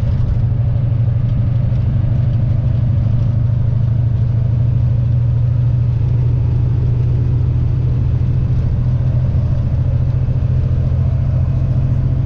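Steady drone of a Volvo VNL semi truck's diesel engine and road noise, heard inside the cab while cruising at highway speed.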